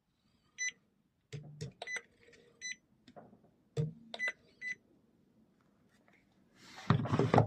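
Doersup Smart M20 handheld inkjet marker giving about six short high beeps, mixed with a few sharp clicks of the unit handled against a painted metal surface. The beep is the marker's signal that it has been pressed down and is ready to be swept across to print. Near the end comes a louder, brief scraping rustle.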